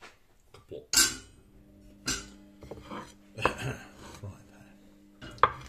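Cast iron frying pan and kitchen utensils clattering: several sharp knocks with scraping between them. A steady low hum sets in about a second and a half in.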